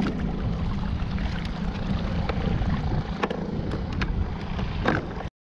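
Water rushing and splashing along the hull of a kayak under tow, with wind buffeting the microphone and a few sharp knocks. It cuts off suddenly near the end.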